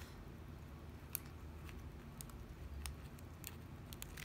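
A few faint, scattered light clicks from a small plastic bag of diamond-painting drills being handled.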